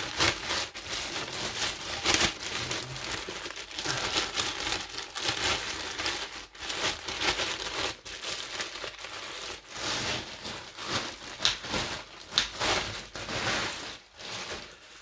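Clear plastic packaging being crinkled and pulled off new golf irons: a continuous crackling rustle, full of short sharp crackles.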